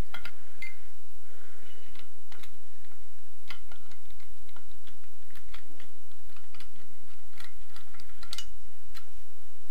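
Scattered small metallic clicks and taps as loosened bolts are turned out and lifted from a Honda VFR800Fi cylinder head by hand, over a steady low hum.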